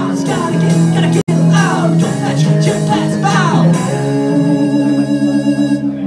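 Live new-wave band of synths, electric guitar and bass guitar playing with sung vocals, then holding a final sustained chord for the last couple of seconds. A split-second dropout cuts the sound a little over a second in.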